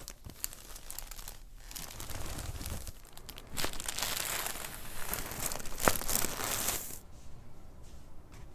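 Crinkling and rustling, louder for about three seconds from the middle and broken by a few sharp clicks, as a patient shifts about on a chiropractic adjusting table.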